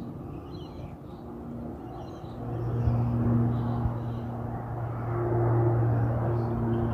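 Twin-engine turboprop airliner climbing out overhead: a steady propeller drone with a low hum that grows louder about two and a half seconds in. Faint bird chirps come through in the first half.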